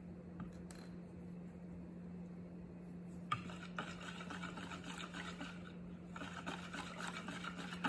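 Wire whisk stirring thin cake batter in a plastic bowl: a soft, busy swishing and scraping that gets louder after a small click about three seconds in.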